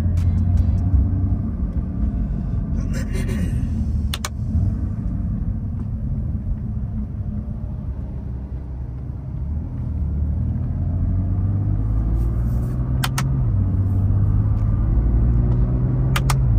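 BMW F80 M3's twin-turbo inline-six running while driving, its note climbing slowly and then dropping in a step about thirteen seconds in as it shifts up a gear. A few short sharp clicks, a close pair of them at the gear change, fit the magnetic paddle shifters being pulled.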